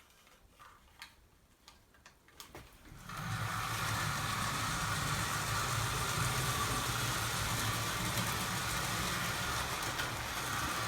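Model railway locomotive's electric motor running steadily, with its wheels rolling on the track, as it hauls five coaches up a 4% incline. A few faint clicks come first, and the steady hum starts about three seconds in.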